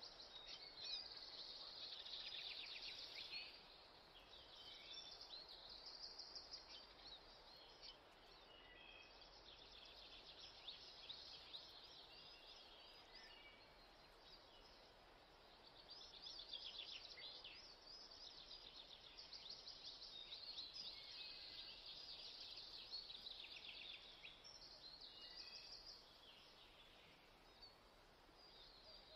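Faint sizzling and crackling of diced tomatoes, peppers and onions frying in a pan, swelling and easing in waves.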